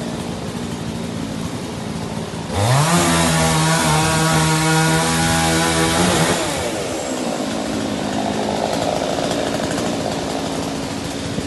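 Chainsaw revving up about two and a half seconds in, held at high revs for about four seconds, then dropping back, amid a steady rushing noise.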